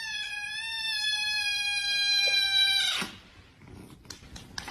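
Cat giving one long, drawn-out meow of about three seconds, wavering slightly and sinking a little in pitch before it stops.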